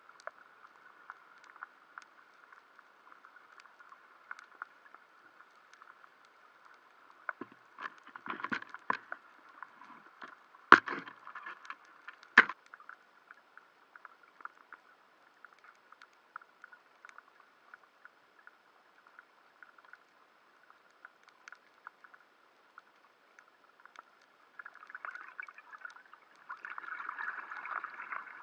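Underwater ambience heard through a waterproof camera housing: a faint, steady crackle of small clicks, with a few sharper knocks about a third of the way in and the crackle growing denser near the end.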